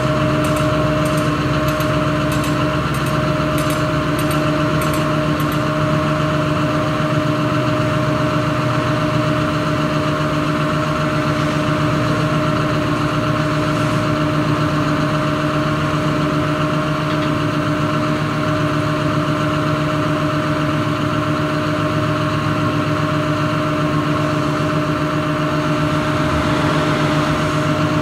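Caterpillar 330F excavator's diesel engine idling steadily, the machine standing still with no digging or swinging, a constant hum under the engine note.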